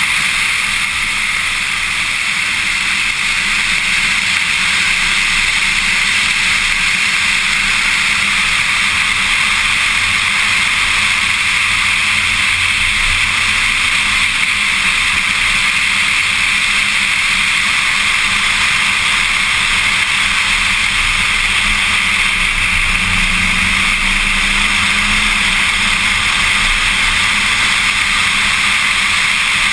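Steady loud rush of wind and road noise from a Corvette Z06 at track speed, with the engine faint beneath it and rising a little near the end.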